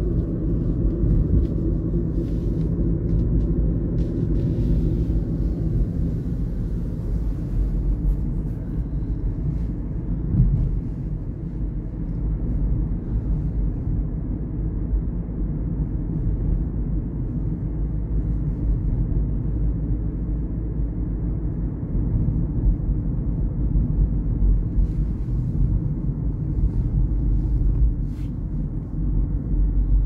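Steady low rumble of road and engine noise heard inside a moving car's cabin, with one brief thump about ten seconds in.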